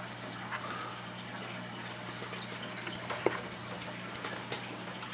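Small clicks and handling noises as a rubber fuel line and an aluminium breather fitting are worked into the grommet of a plastic RC fuel tank, with one sharper click a little past the middle. A steady hiss and low hum run underneath.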